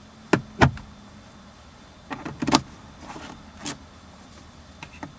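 The glovebox lid of a 2008 Smart Passion coupé is pushed shut, with two sharp knocks a few tenths of a second apart as the lid closes and the latch catches. About two seconds in come a cluster of clicks and rattles, and then more clicks.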